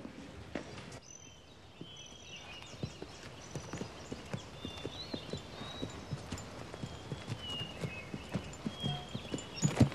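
A ridden horse's hooves beating on the dirt of an arena. The run of hoofbeats grows louder toward the end as the horse comes closer, with faint bird chirps above.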